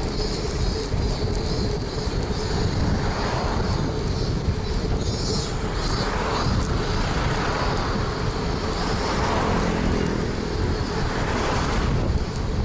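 Street traffic and wind noise heard from a moving bicycle: a steady rush with several vehicles swelling past and fading, about every two to three seconds.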